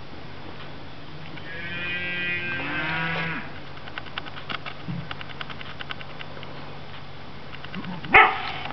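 A farm animal calls once, a drawn-out call of about two seconds that bends in pitch. Faint light ticks follow, and a short, sharp, loud sound comes near the end.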